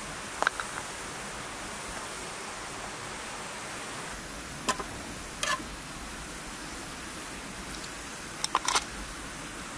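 A steady hiss with a few sharp, light clicks and taps over it: one near the start, two in the middle and a quick cluster of three or four near the end.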